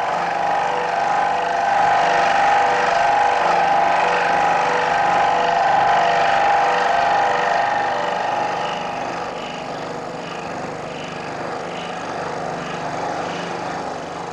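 Electric bench scroll saw running, its fine reciprocating blade cutting a profile out of a block of wood: a steady mechanical drone that eases off a little about eight seconds in.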